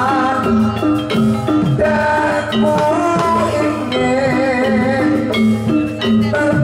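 Javanese folk dance accompaniment music: steady drumming and repeated struck pitched percussion notes, with a wavering melody line held above them.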